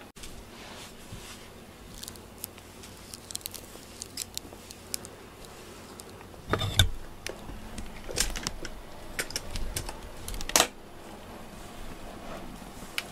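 Scattered soft clicks and rustles of a rubber-nubbed grooming glove brushing a cat's fur, with a few louder handling bumps about halfway and near the end.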